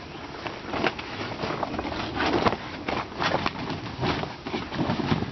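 Heavy polyethylene fabric cover rustling in irregular bursts as it is pulled down and settled over a small wooden lattice yurt frame.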